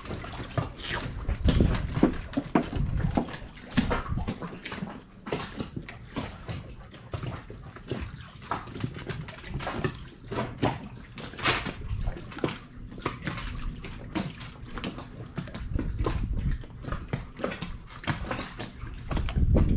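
Small waves lapping and slapping against a catamaran's stern step and hull in quick, irregular splashes, with a few low rumbles.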